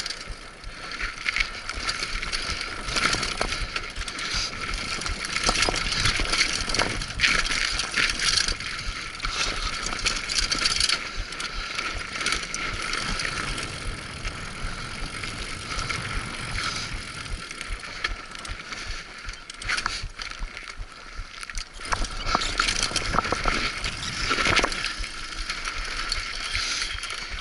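Mountain bike rolling fast down a dry dirt singletrack: tyres crunching over dirt and stones, with constant irregular rattling and clattering from the bike over the bumps.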